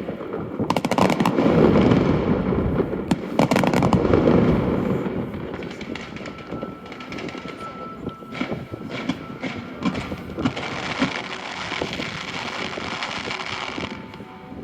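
Aerial fireworks going off: deep booms with bursts of rapid crackling, loudest in the first few seconds, then thinner scattered pops and crackles.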